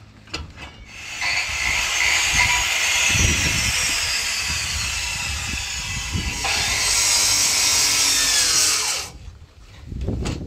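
A handheld power tool cutting, running steadily for about eight seconds and then stopping abruptly.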